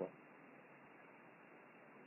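Near silence: faint steady hiss of room tone, after the last syllable of a man's speech at the very start.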